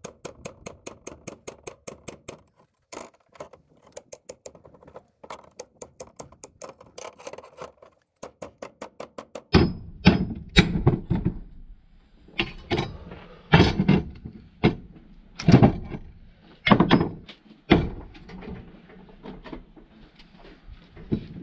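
A hammer striking the back of a steel blade to chop the copper windings off an electric motor stator: quick, even taps about five a second, then after about nine seconds heavier, slower, irregular thuds.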